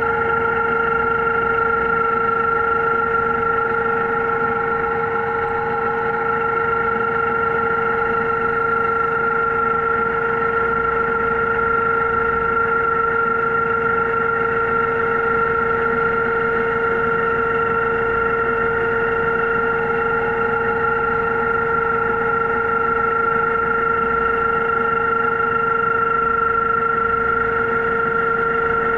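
Underwater scooter (diver propulsion vehicle) motor running under water, a steady whine held at one unchanging pitch with overtones over a rushing hiss.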